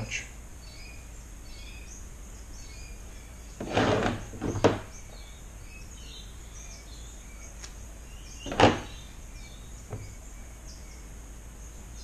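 Handling noises at a fly-tying bench over a steady low room hum: a short rustle and knock about four seconds in, and a single sharp click near nine seconds.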